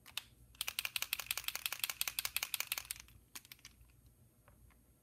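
Posca paint marker being shaken, its mixing ball clacking inside the barrel in a fast run of clicks, about ten a second, for roughly two and a half seconds. A few lighter clicks follow.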